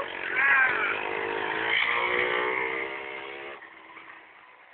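Small engine of a motorized beer crate running steadily as it drives off, fading away after about three and a half seconds. A short high-pitched call sounds over it about half a second in.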